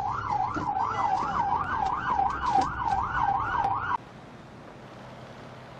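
A siren in a fast yelp, its pitch rising and falling about three times a second over a low rumble. About four seconds in it cuts off suddenly, leaving only a faint steady hiss.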